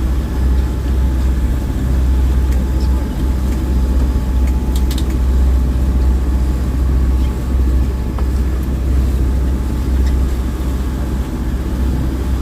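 Boat engine running steadily, a loud, continuous deep rumble heard from on board.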